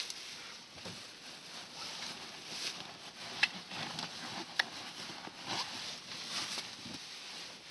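Rustling and rattling as a backpack and a plastic bag are rummaged through by hand, with two sharp clicks a little past the middle.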